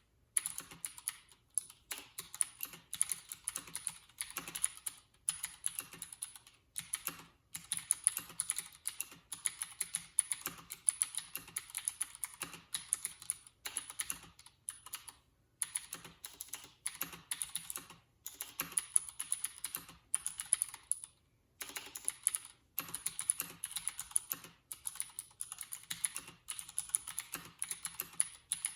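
Steady typing on a Leopold FC750R tenkeyless mechanical keyboard with clicky Cherry MX Blue switches and PBT keycaps: a fast, continuous run of sharp key clicks, broken by a few short pauses.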